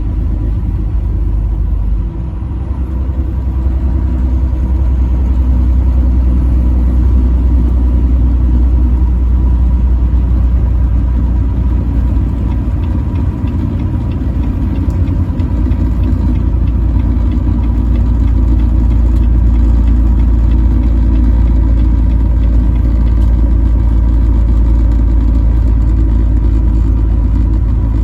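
Loud, steady low rumble of a truck's engine and road noise while driving on the highway.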